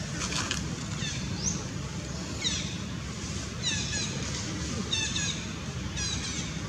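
A bird calling repeatedly: short groups of quick high notes about once a second, over a steady low background rumble.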